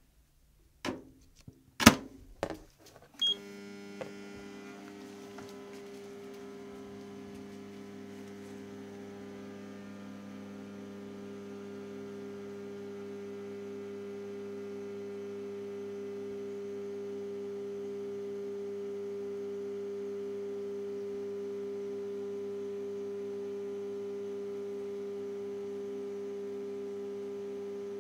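Microwave oven being started: a few sharp clicks and a short beep, then the oven's steady electrical hum running on and slowly growing louder.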